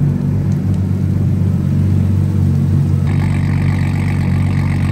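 Nissan Skyline R32's RB20DET turbocharged straight-six running at a steady idle. About three seconds in, a higher hiss joins the exhaust note.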